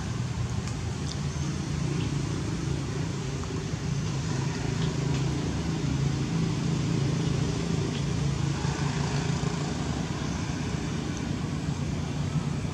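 Steady low rumble of a motor vehicle engine running nearby, with a few faint ticks.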